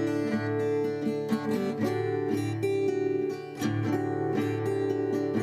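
Background music led by a plucked and strummed acoustic guitar, with a brief dip in level about three and a half seconds in.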